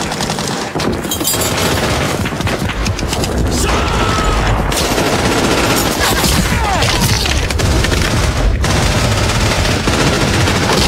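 War-film battle soundtrack: dense, continuous rifle and machine-gun fire that does not let up.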